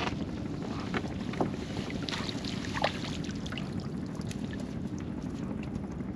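Wind buffeting the microphone over open water, with small splashes and drips as a fishing net is worked over the side of a small wooden boat; a few sharper splashes stand out about a second in and near the middle.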